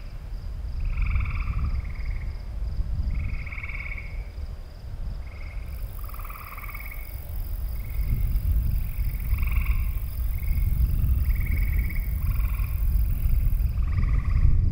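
A chorus of frogs calling, short overlapping croaks following one another every half second or so. A low rumble runs underneath and grows louder in the second half. A faint high pulsing tone runs throughout, and a high hiss comes in about six seconds in and stops near the end.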